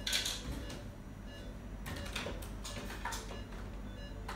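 Faint rustling and a few sharp clicks from gloved hands handling sterile packaging and instruments on a surgical tray.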